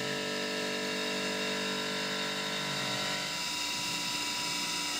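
CNC mill spindle running a carbide roundover radius mill along the edge of a steel gas block under flood coolant: a steady, many-toned machining hum with coolant spray. Some of the tones drop away about three seconds in.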